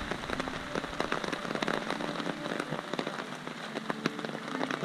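A dense, irregular patter of small ticks over a steady hiss.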